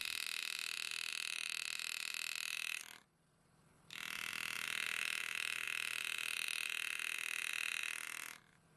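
Power-assisted engraving handpiece driving a narrow V-graver, buzzing steadily as it cuts letters into a pocket watch case. It runs in two stretches, stopping for about a second near the middle and again just before the end.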